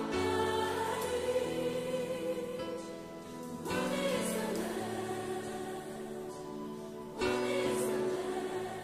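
Choir singing a slow worship song in long held chords, moving to new chords about three and a half and seven seconds in.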